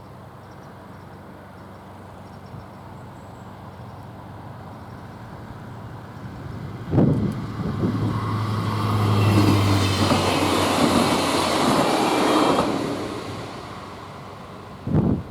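A train passing over a level crossing. Its engine hum builds and peaks just past the middle, then the wheels rush by on the rails and fade away. A sudden low thump comes about halfway in, and low gusts come near the end.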